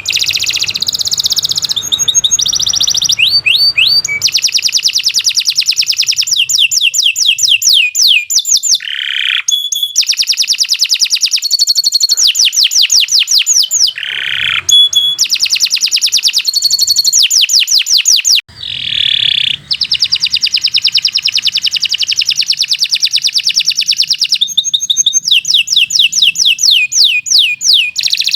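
Domestic canary singing a long, loud song of rapid trills and quickly repeated high notes, with a few brief breaks.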